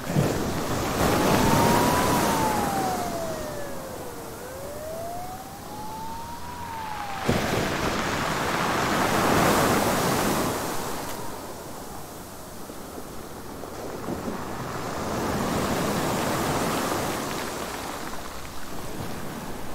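Rushing noise that swells and fades every several seconds, like surf or gusting wind. A thin wailing tone rises and falls twice in the first seven seconds, then cuts off suddenly.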